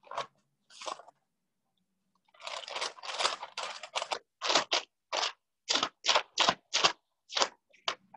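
Thin Bible pages being turned by hand while looking up a verse. First a quick run of rustles, then single page-turns about three a second.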